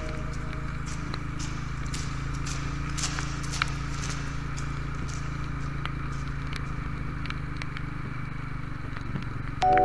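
Steady low drone of a vehicle engine on the move, with scattered sharp ticks and taps over it.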